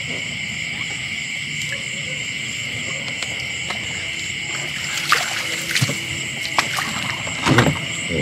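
Steady night chorus of insects, a high continuous trill. From about five seconds in it is broken by a few short splashes or knocks in water, the loudest near the end.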